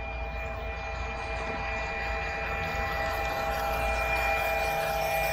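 A train horn sounding one long, steady chord of several notes over a low rumble.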